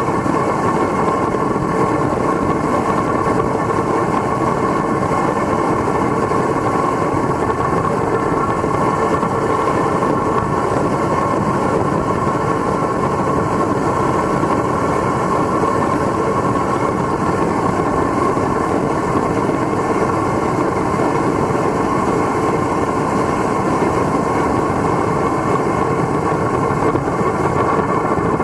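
Homemade forced-air foundry burner, built from black iron pipe, running steadily: a loud, even rush of flame and air that holds unchanged throughout.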